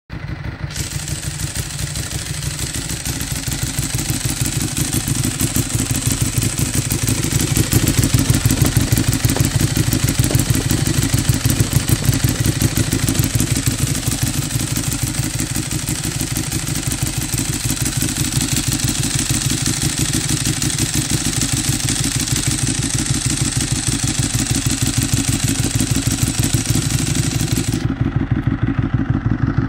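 Ducati Streetfighter's L-twin engine idling steadily through twin stacked aftermarket Akrapovic mufflers, with a fast, even pulsing exhaust beat.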